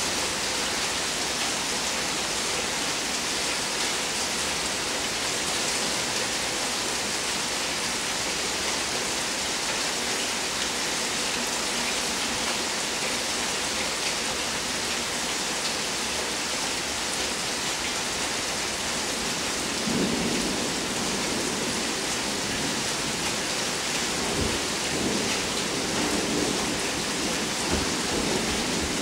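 Steady rain falling during a thunderstorm, with a low rumble of thunder rolling in about two-thirds of the way through and carrying on in waves to the end.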